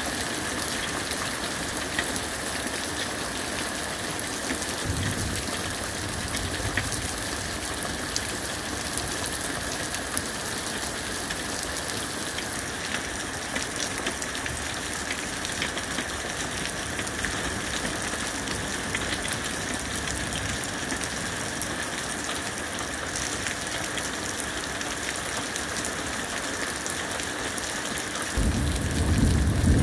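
Steady rain falling and pattering on surfaces during a thunderstorm, with a faint low rumble of thunder about five seconds in. Near the end a louder rumble of thunder sets in.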